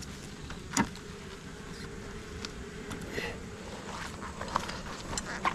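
Honeybees buzzing as a steady hum around an open hive, a colony the beekeepers call cranky and not happy. A sharp knock about a second in and a few lighter clicks near the end.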